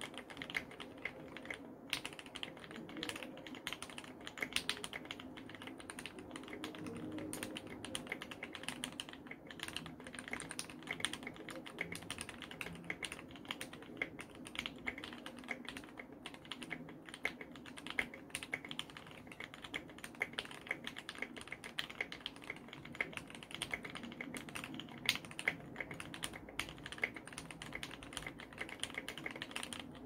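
Steady, fast typing on a Tofu60 60% mechanical keyboard, o-ring mounted, with lubed and filmed Gateron CJ linear switches: a dense, unbroken run of many keystrokes a second, its sound sitting low. The owner wonders whether it counts as 'creamy'.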